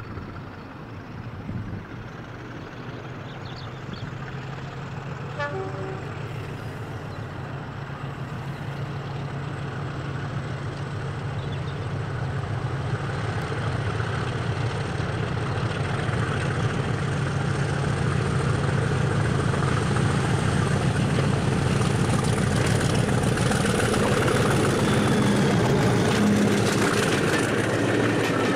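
English Electric Class 50 diesel locomotive, with its 16-cylinder engine working under power, approaching and growing steadily louder. Near the end, train wheels on the rails join in as it passes.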